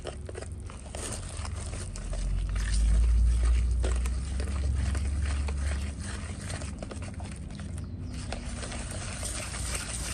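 Hand whisk scraping and clicking irregularly against a plastic bowl as it stirs a thick, floury batter. A low rumble swells from about two seconds in and drops away at about six seconds.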